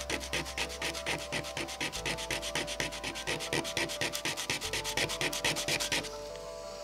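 Plastic housing of a small SanDisk flash drive being rubbed back and forth by hand on 150-grit sandpaper: quick, even scratchy strokes, about six a second, stopping shortly before the end.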